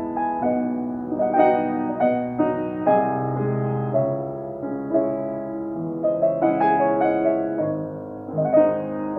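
A Bechstein grand piano being played: a slow piece of held chords under a melody, new notes struck every second or so. The piano has just been moved and is not yet tuned. The sound is recorded through a phone's microphone.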